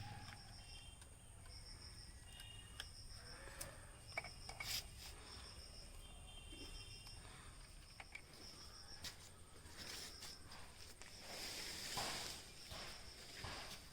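Insects chirping in short, high-pitched trills that repeat about once every second or so, with a faint steady high hum beneath. A few clicks, and near the end a louder stretch of rustling and handling noise.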